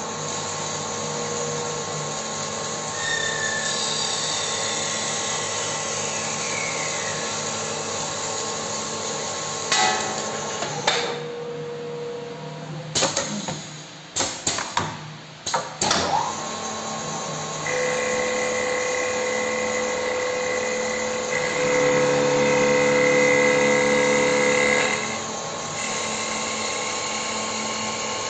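Automatic-feeding CNC wood lathe running and cutting wood: a steady motor hum with whining tones. A cluster of sharp clacks and knocks comes roughly halfway through, and a louder, higher whine holds for several seconds after that.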